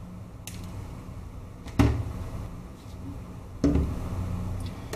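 Handling noise as a small power-supply circuit board is moved and set down on a bench work mat: a faint click, then two sharp knocks about two seconds apart, under a low steady hum.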